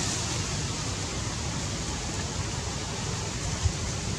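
Steady outdoor background noise: an even hiss over a low rumble, with one short, low thump near the end.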